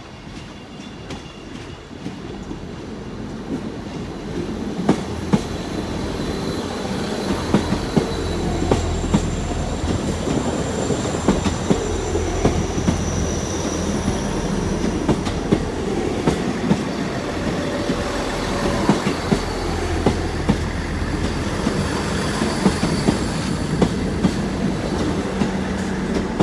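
South Western Railway Class 159 diesel multiple unit running into the platform, growing louder over the first several seconds: a low diesel engine hum, wheels clicking over rail joints, and faint high-pitched wheel squeal.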